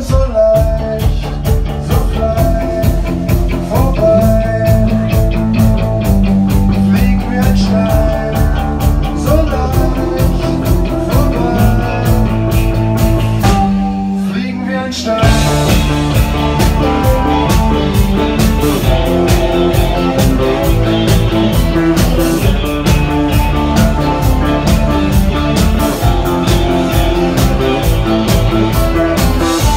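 Live rock band playing an instrumental passage: electric guitars, bass and drums over a steady beat. About halfway through, the band drops out for a moment, then comes back in fuller.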